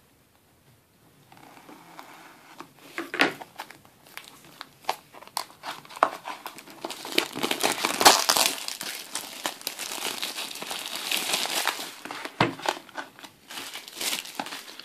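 Plastic shrink wrap being slit with scissors and peeled off a cardboard trading-card booster box: a run of crinkling and crackling that starts after about a second of quiet, grows densest around the middle, then thins out.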